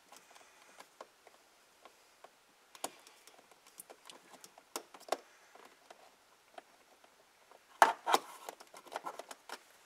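Faint scattered clicks, taps and scrapes of a plastic trim tool tucking dash cam cables under a vehicle headliner, with a louder cluster of clicks and rustling about eight seconds in.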